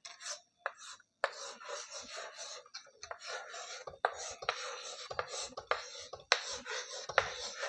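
Writing: a pen scratching across a surface in a run of strokes, each about half a second to a second and a half long, with short breaks between them.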